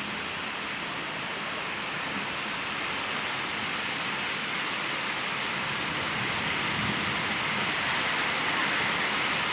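Heavy rain pouring down, a steady hiss that slowly grows a little louder.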